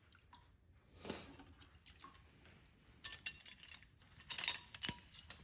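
Small metal pieces clinking and rattling against each other in a cluster of sharp, bright clicks. It starts about three seconds in and is loudest near the end.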